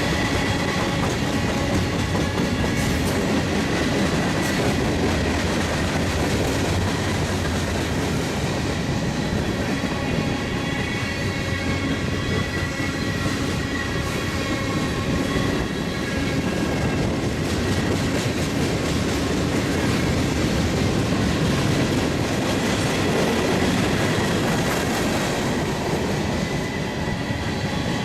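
Freight cars of a mixed freight train rolling past, wheels clattering steadily over the rails, with a faint steady high whine.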